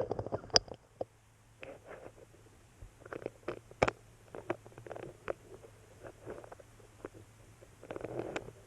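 Scattered light clicks, taps and short scrapes of an engine cylinder's small parts and hand tools being handled, busier near the end, over a faint steady low hum.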